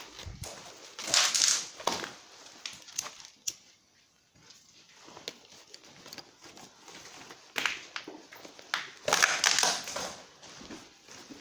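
Footsteps crunching and scuffing over a gritty floor, with scattered clicks and knocks; two louder spells of crunching, about a second in and again about nine seconds in.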